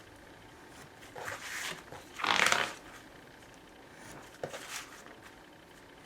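A blade cutting a slit through an ostrich-leather boot vamp and its glued reinforcement: a few short scraping cuts and leather rustles, the longest about two seconds in, then a small click.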